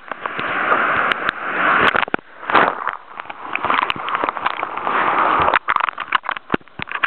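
Surf water splashing and washing close over the microphone, the noise swelling and dropping away, with many sharp crackling knocks and clicks from the camera being jostled.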